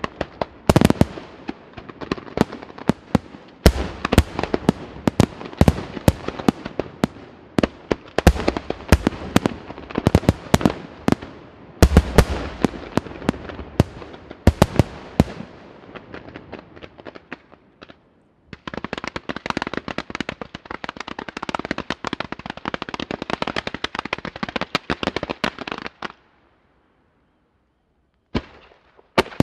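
Aerial fireworks shells of a La Rosa Fireworks display bursting in rapid succession, sharp bangs close together. From about two-thirds of the way through, the bangs give way to a continuous dense crackling. It falls silent briefly near the end before bangs start again.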